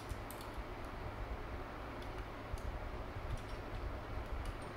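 Small metal parts of a Predator carburetor's throttle linkage clicking and ticking as hand tools work a clip and link bar off, in scattered light clicks over a low steady hum.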